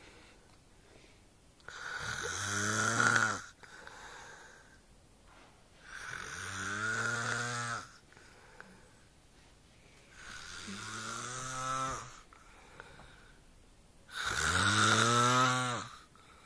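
A man snoring in slow, regular breaths: four drawn-out snores about four seconds apart. Each is a tone that falls in pitch, sounding like a cow mooing.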